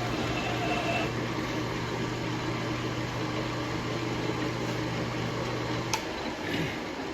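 Metal lathe running steadily with a low motor hum while turning a stainless steel shaft, then a sharp click about six seconds in, after which the hum stops and a short falling sound follows.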